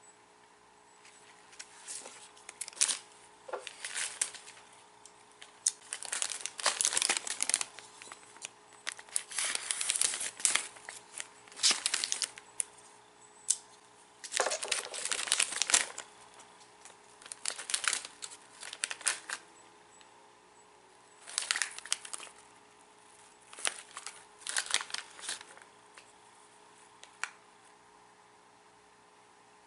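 Plastic snack bag of wasabi sesame arare rice crackers being torn open and crinkled by hand, in irregular bursts of crackling with short pauses between, stopping a few seconds before the end.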